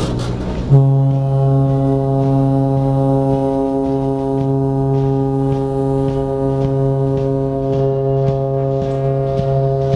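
Train horn sounding one long, steady blast that starts abruptly about a second in and holds a single unchanging chord, with faint clicks over it.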